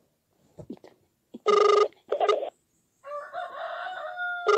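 The ringback tone of an outgoing mobile call, played loud through the phone's speaker as short double rings: two pairs about three seconds apart. Between them, about three seconds in, a rooster crows once.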